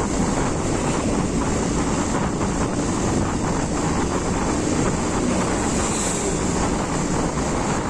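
Bajaj Pulsar motorcycle running steadily at road speed, with wind buffeting the phone's microphone.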